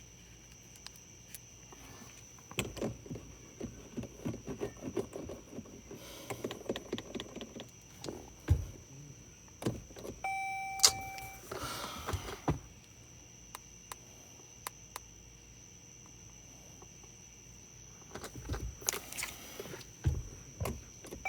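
Clicks, knocks and rustling of things being handled inside a car, with a few heavier thumps and a short electronic car chime of about a second, roughly ten seconds in.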